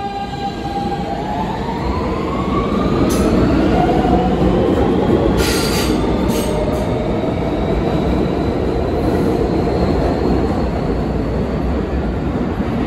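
5-car R160B subway train with Siemens propulsion accelerating out of the station: the traction motors' whine rises in pitch over a steady rumble of wheels on rail. Short bursts of wheel squeal come a little after halfway.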